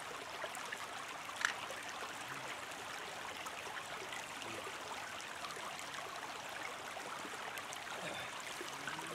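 Shallow creek water running steadily over rocks, with one sharp click about a second and a half in.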